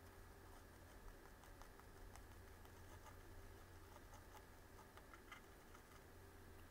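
Near silence: a low steady hum, with faint scattered ticks from a wooden toothpick dabbing melted white chocolate into a clear plastic lollipop mold.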